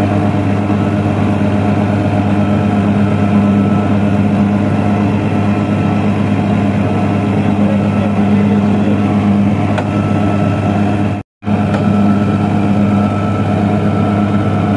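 Tractor diesel engine running steadily at low speed while it tows and drives a mobile brick-making machine laying rows of clay bricks. The sound cuts out completely for a moment about eleven seconds in.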